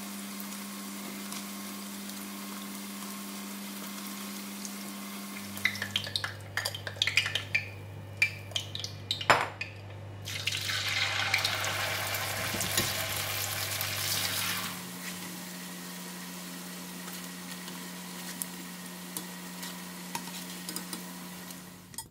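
Bitter gourd slices deep-frying in hot oil with a steady sizzle. About a quarter of the way in, a metal mesh strainer clinks and scrapes against the pan in a run of sharp knocks for several seconds, then the sizzling grows louder for a few seconds before settling back. A low steady hum runs underneath.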